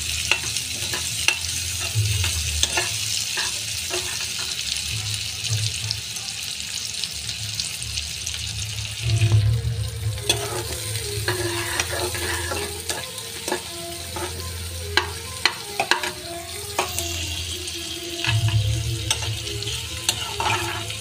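Sliced onions, garlic and green chillies sizzling in hot oil in a metal kadhai as they are sautéed toward light golden brown. A metal spatula scrapes and knocks against the pan at irregular moments as they are stirred.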